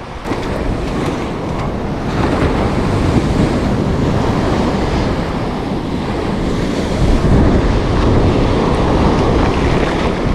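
Surf washing onto a sandy beach, with wind buffeting the microphone as a steady low rumble.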